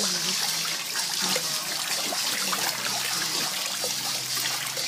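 Steady rush of moving, splashing water.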